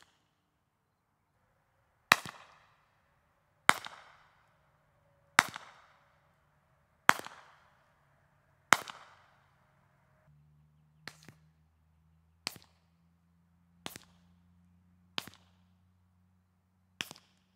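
Five loud unsuppressed shots from a .45 ACP Ruger PC Carbine, about a second and a half apart, each with a short echo, followed by five much quieter shots from the same carbine fitted with a Bowers ASP45 suppressor that has been shot wet.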